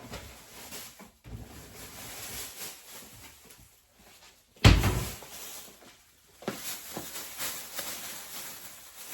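A kitchen door shutting with one sudden thump about halfway through, amid scattered clattering and rustling handling noises.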